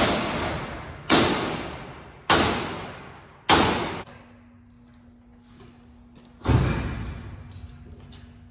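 Sledgehammer striking the steel hinge of a rolloff dumpster's tailgate four times, about a second apart, each blow ringing as it fades, to straighten the bent hinge. About six and a half seconds in comes one deeper, heavier thud.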